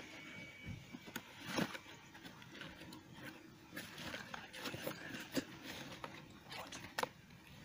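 Hands rummaging in a small cardboard box of fishing tackle: rustling, with scattered small clicks and knocks of the items inside. The sharpest clicks come about a second and a half in and near the end.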